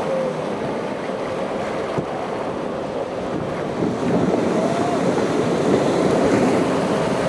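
Heavy ocean surf breaking, with wind buffeting the microphone; the noise swells louder about four seconds in.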